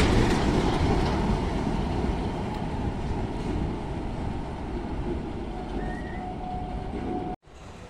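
Freight train rolling past on the track, the rumble and rattle of its wheels and wagons slowly fading as it draws away, with a faint steady tone toward the end. The sound cuts off abruptly near the end and a quieter background follows.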